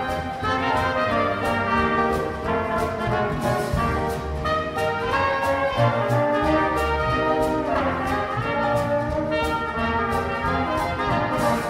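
Small jazz band of trumpet, clarinet, trombone, piano, bass and drums playing, with the trumpet and trombone leading over cymbal strokes that keep a steady beat.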